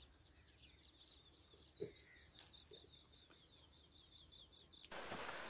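Faint outdoor ambience: rapid short high chirps, about five a second, over a thin steady high whine, with a soft thump about two seconds in. Just before the end it switches abruptly to a steady hiss.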